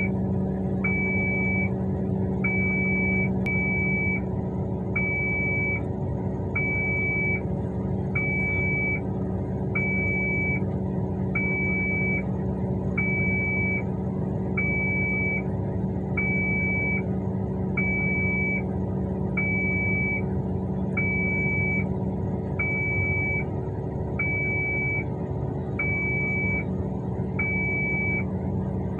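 Heavy mining machinery running steadily: a diesel engine hum with a repeating high warning beep about every second and a half.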